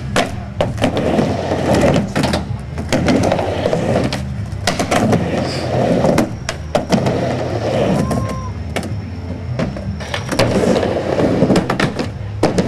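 Skateboards rolling back and forth on a portable mini ramp, with a steady rumble of the wheels broken by many sharp clacks and knocks as the boards and trucks strike the ramp and its coping.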